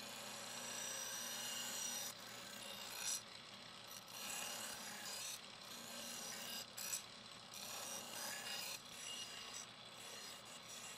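A stainless steel chef's knife edge being sharpened against the spinning wheel of a Rikon bench grinder: a hissing, scraping rub in uneven passes over the low hum of the grinder motor.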